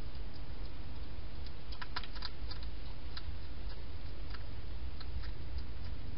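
Wild hedgehog feeding in a plastic feeding station, making small irregular clicks and crunches, with a quick cluster about two seconds in and single clicks after, over a steady low background hum.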